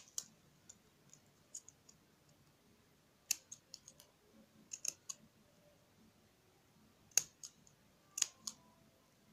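Steel scissors snipping ribbon into a leaf shape: faint, sharp snips, some single and some in quick clusters of two or three.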